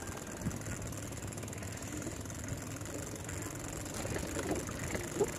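Steady low rumble of wind and road noise on a rider's microphone during the ride, with a faint steady high hiss above it.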